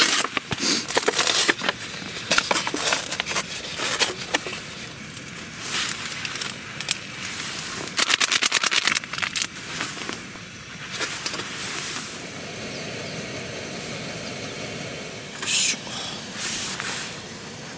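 Plastic film and lid of an instant cup ramen crinkling and crackling as it is unwrapped and peeled open. About two-thirds through, a steady few-second pour of hot water from a kettle into the cup.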